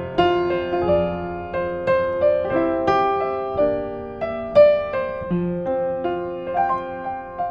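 A 1960s upright piano played at a slow, gentle pace. Single notes and chords are struck about once or twice a second and each is left to ring and fade.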